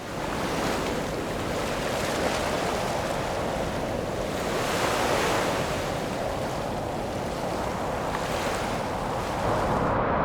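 Ocean surf: waves washing onto a beach, the noise of the wash swelling and easing every few seconds. Near the end it gives way to a duller, steadier rumble.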